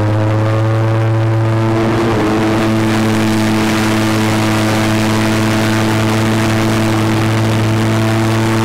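Airboat's engine and large air propeller running at speed, a loud steady drone that rises in pitch over the first two seconds and then holds level.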